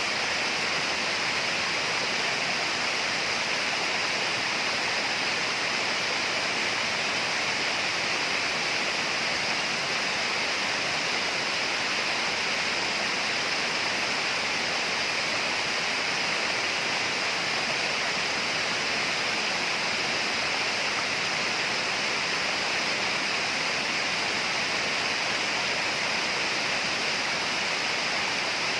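Steady tropical rainforest ambience: an unbroken, even hiss like running water, with constant high-pitched bands that never let up.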